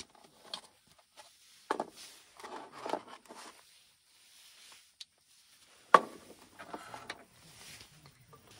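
Camp gear being handled on a wooden table: a few knocks and clatters of wood and metal with soft rustling in between, and one sharp knock about six seconds in.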